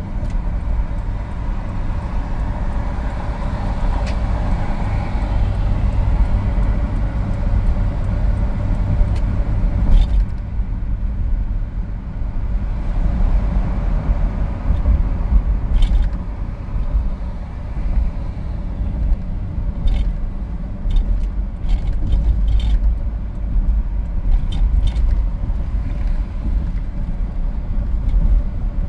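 Steady road and engine rumble of a car driving at highway speed, heard inside the cabin, with scattered light clicks and rattles from about ten seconds in.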